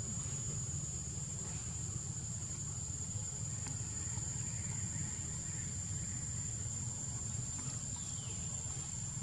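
Steady high-pitched insect drone over a constant low rumble, with a faint falling chirp near the end.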